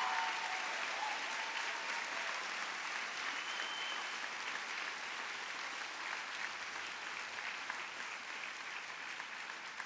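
Large audience of seated graduates applauding, a dense steady clapping that slowly fades.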